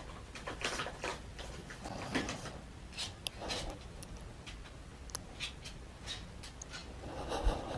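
Scattered faint clicks and light knocks in a small room: a small dog moving about on a wooden floor, its claws tapping on the boards.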